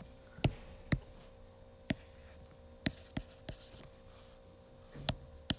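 Stylus tip tapping and clicking against a tablet's glass screen while handwriting: about eight short, sharp taps at irregular intervals, over a faint steady hum.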